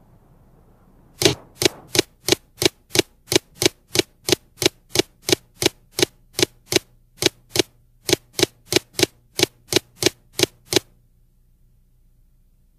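Typewriter key clacks, about three a second: a sound effect for on-screen text being typed out one character at a time. There are two short gaps near the middle, and the clacks stop a couple of seconds before the end.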